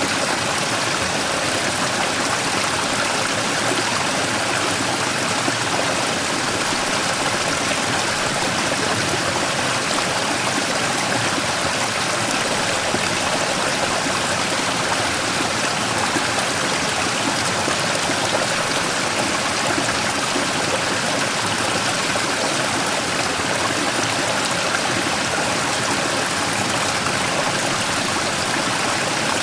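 Mountain stream rushing and splashing over a large rock in a small waterfall, a steady, unbroken water noise.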